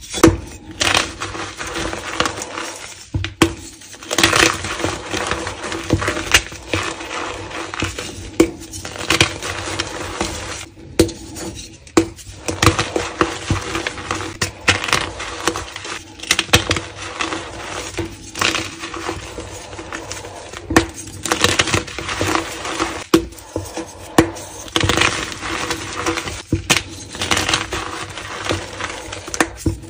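Blocks of dyed gym chalk being crushed and crumbled in bare hands: dense, irregular crunching and crackling as the chalk breaks and falls apart into powder.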